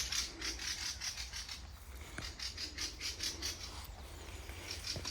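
Birds giving harsh, rasping chattering calls in quick runs of about six notes a second, with a short break about two seconds in. These are birds that nest on the spot and attack passers-by; their calls are called barking.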